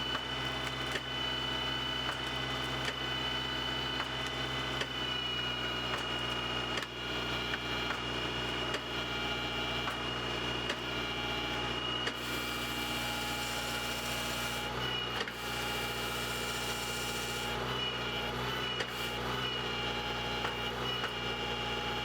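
Tractor engine running steadily at raised revs while driving the hydraulics of a harvester head, with a steady high whine and scattered knocks. A hissing sound rises over it for several seconds past the middle.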